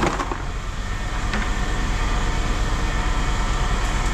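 Steady low engine rumble, with a faint click about a second in.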